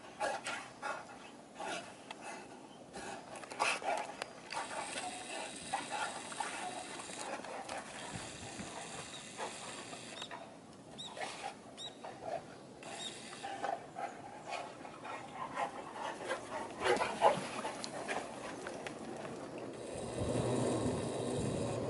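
Two Cane Corso dogs playing rough in the snow: irregular dog sounds, panting and short vocal noises among scuffling, through most of the stretch. A steady low rushing noise comes in near the end.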